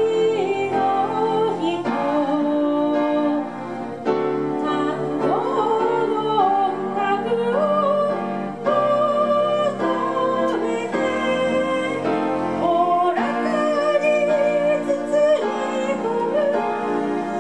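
A live band playing a pop song led by electric keyboards, with a lead melody that slides and wavers in pitch.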